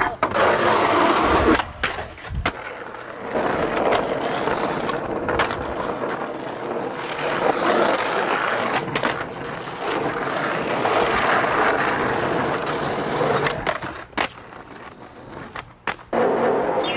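Skateboard wheels rolling loudly over smooth pavement, with several sharp knocks of the board along the way.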